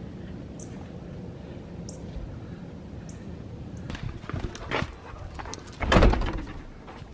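Huskies whining and yipping excitedly as they are let out, starting about four seconds in, with a loud thump about six seconds in.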